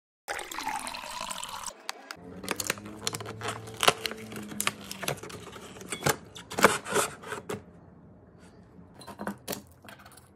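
Red wine pouring into a stemmed glass for about a second and a half. Then cardboard crackling, tearing and clicking as a small bottle is pulled out of a calendar compartment, tapering to quieter scattered handling clicks.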